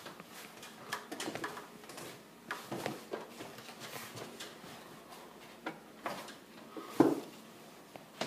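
Scattered light knocks, taps and clunks of hands handling and fastening a condensate pump in its mounting, with one louder knock about seven seconds in.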